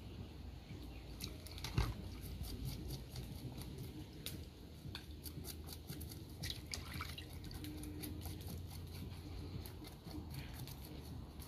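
A knife scraping scales off a piece of soaked saltfish over a pot of water, in short irregular scratchy strokes with water dripping, and one sharper knock about two seconds in.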